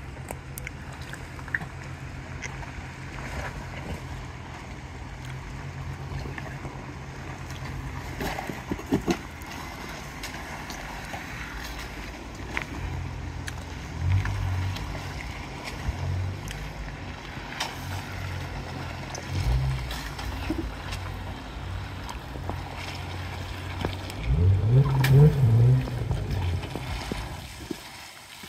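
Jeep Wrangler engine running at low revs as it crawls through a rocky, muddy ditch, with throttle pushes about halfway through and a longer, louder one near the end. Scattered clicks and knocks over the engine.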